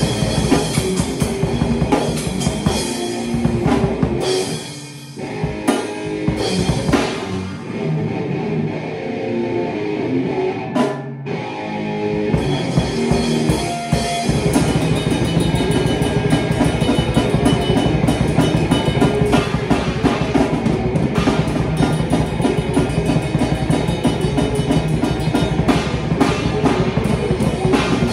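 Live rock jam on an acoustic drum kit with crashing cymbals and an amplified electric guitar. A few seconds in, the playing thins out and gets quieter for several seconds, then the full band comes back in from about halfway.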